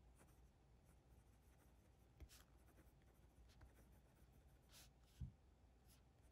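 Faint scratching of a Sailor Pro Gear ballpoint pen writing in short strokes on Cosmo Air Light paper, with a soft low bump about five seconds in.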